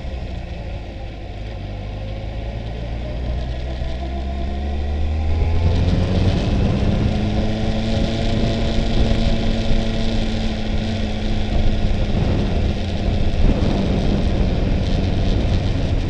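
Kawasaki ZX-14's inline-four engine heard from on board while riding. The engine note sinks over the first few seconds, then picks up about five or six seconds in and holds steady, with wind rushing over the microphone.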